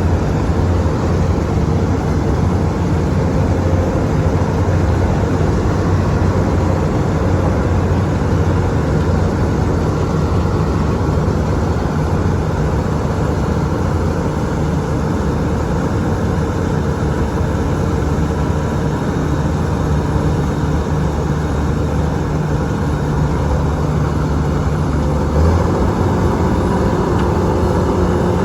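A machine engine running steadily, with a low, even drone that shifts in pitch near the end.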